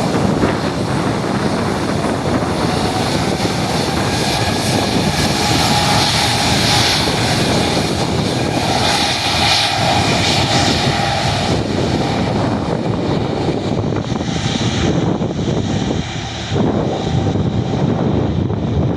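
Loud, steady noise of a jet airliner's engines, with a faint high whine over it; it dips briefly near the end.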